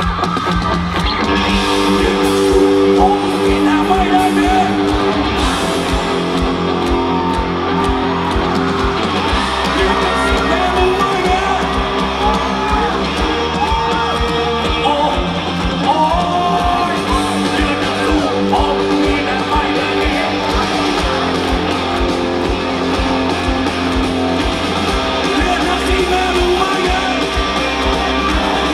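Live rock band playing loudly: electric guitars, bass and drums, with singing over them.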